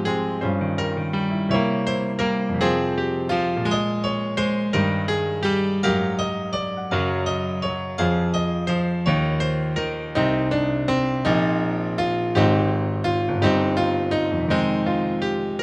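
Solo piano playing a gentle flowing piece, notes struck a few times a second over held chords in the bass.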